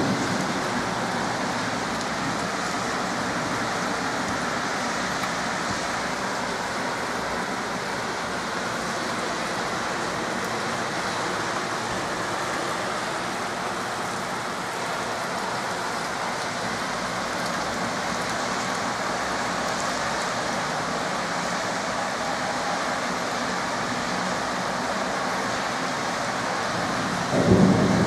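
Heavy rain pouring steadily, with a thunderclap starting near the end.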